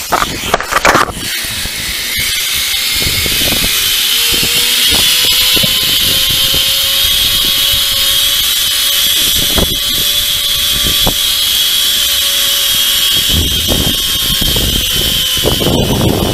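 Zipline trolley's pulleys running along the steel cable with a steady whine that climbs a little as the rider gathers speed, over rumbling wind noise. A clatter of harness gear comes at the launch, and a few knocks follow. The whine stops shortly before the end as the trolley slows.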